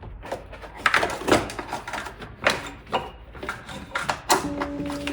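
Irregular clicks, clinks and knocks of tools and parts being handled while working on an engine's intake manifold. A held music tone comes in near the end.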